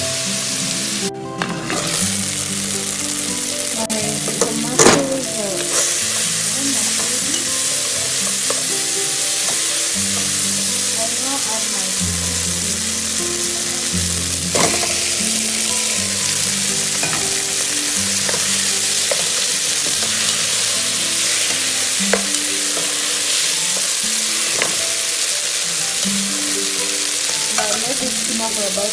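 Onions and tomatoes sizzling in oil in a pan, stirred with a wooden spoon, with a couple of sharp knocks of the spoon against the pan. Near the end, boiled cassava pieces are frying in the mixture.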